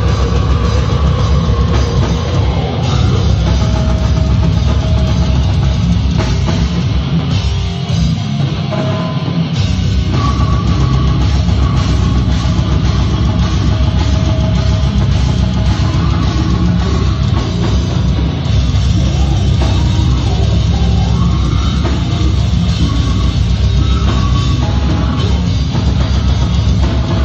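Slam death metal band playing live and loud: pounding drum kit, distorted guitar and bass, and guttural vocals. The low end drops out briefly just before ten seconds in, then the full band comes back in.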